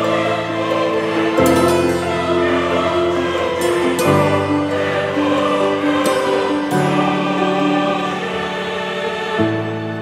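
Background music of slow, sustained chords, changing about every two and a half seconds.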